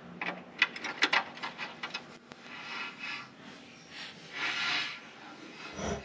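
A helicoil thread insert being wound into a 3/8-inch bolt hole in a skid steer's gear case with its installing tool, metal on metal. A quick run of clicks comes first, then two spells of scraping and rubbing, and a dull knock near the end.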